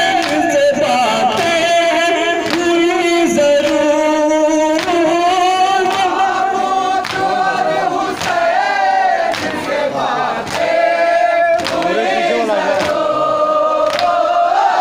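Loud vocal music: several voices singing together in long, wavering notes, with occasional sharp beats.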